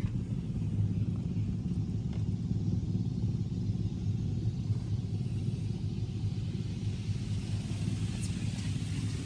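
Steady low rumble of a Coleman Hanna FusionX automatic car wash heard from inside the car, with a faint hiss building near the end.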